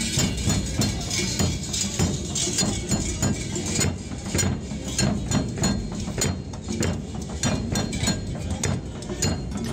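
Large brass cowbells (chocas) hung in a row from carnival dancers' belts, clanking together in a rapid, uneven rhythm as the wearers dance.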